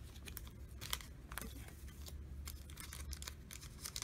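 Pokémon card booster pack wrapper being torn open and handled, a run of irregular crinkles and light tearing.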